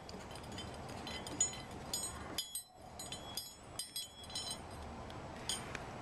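Scattered light metallic clicks and clinks of stainless-steel sampler fittings being handled and seated as the needle assembly is fitted onto the sampler's shroud.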